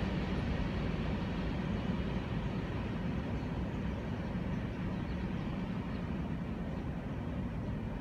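Empty covered grain hopper cars of a freight train rolling away on the rails: a steady low rumble that slowly fades.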